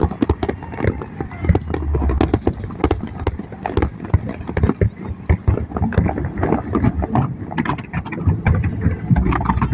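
Fireworks display going off: many sharp bangs and crackles in quick, irregular succession, several a second.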